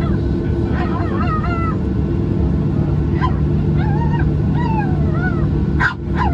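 Steady low rumble of a Boeing 737-800 airliner cabin. About five short, high, wavering cries ride over it, each rising and falling in pitch, and the sound breaks off sharply for a moment near the end.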